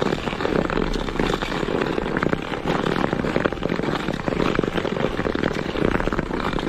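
Skate blades running over lake ice: a continuous rough, crackling scrape that stops suddenly at the end.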